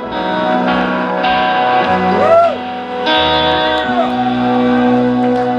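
Live band playing, with electric guitar, acoustic guitar and bass guitar sustaining chords, and a few rising-and-falling pitch bends over the top.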